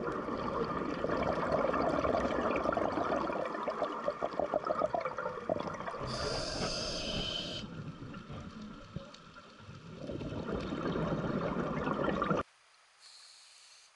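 Scuba diver breathing through a regulator underwater: a long rush of exhaled bubbles, then a short hissing inhale about six seconds in, then another bubbling exhale. Near the end the sound drops away suddenly to a faint hiss, broken by one more brief inhale.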